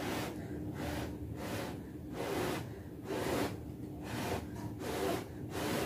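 Quick series of short puffs of breath, one about every half to three-quarters of a second, blowing on a lit coconut-shell hookah coal held in tongs. A faint steady hum runs underneath.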